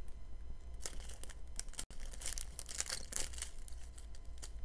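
Small plastic bags of diamond-painting drills crinkling as they are handled, in quick irregular rustles that thicken after the first half second.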